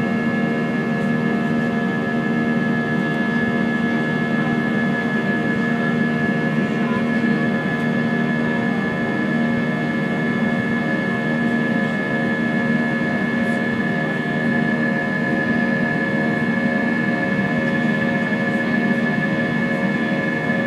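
Airbus A320's wing-mounted jet engines heard from inside the cabin during the climb after takeoff: a steady drone with a high, steady whine over it.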